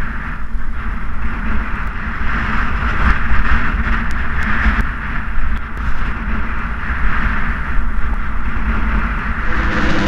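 Steady wind rush and road rumble picked up by a camera riding along on a road bicycle.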